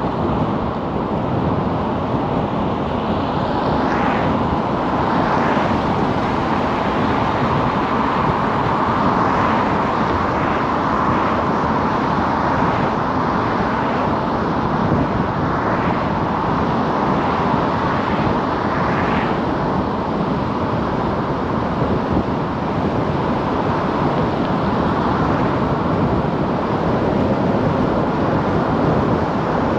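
Steady road noise of a car driving: tyres and engine running continuously, with a few brief swells of passing traffic.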